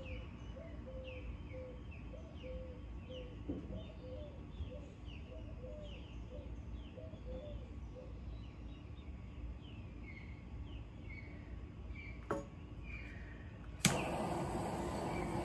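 A bird calling in a steady series of short falling chirps, about two a second, with a run of short lower notes in the first half. Near the end a hand torch used to heat the poured paint starts hissing steadily, after a sharp click.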